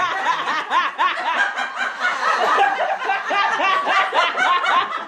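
Several women laughing together, overlapping bursts of laughter.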